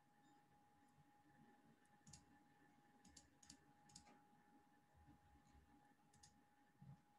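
Near silence: room tone with a faint steady hum and several faint, scattered clicks, a few of them close together around the middle.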